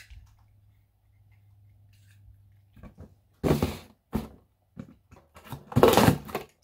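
Box cutter slicing through the tape and cardboard along the top of a shipping box: a few short rasping cuts in the second half, the longest and loudest near the end.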